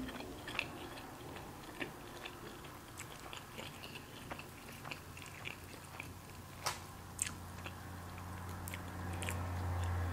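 Close-miked chewing and small mouth clicks of someone eating, with scattered light clicks. A low hum grows louder over the last few seconds.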